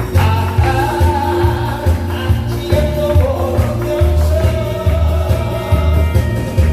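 Amplified singing over music: held, gliding melody notes over a steady, evenly pulsing bass beat.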